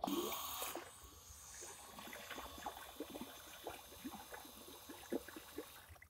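A 12 V 775 DC motor metal water pump starting up with a short loud burst, then running with a faint steady whine while its jet of water splashes and gurgles onto the water surface.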